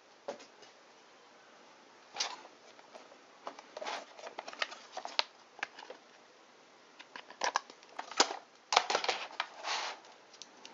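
Handling noise from a plastic case of precision screwdrivers: scattered clicks and rattles as the case is handled and a small screwdriver is picked out, in a few clusters with quiet gaps between.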